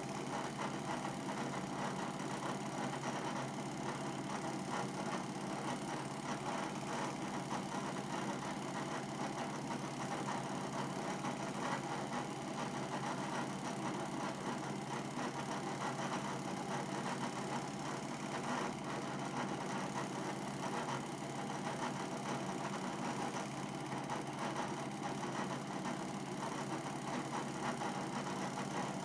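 Home-movie film projector running: a steady motor whir with a fast, even clatter from the film transport.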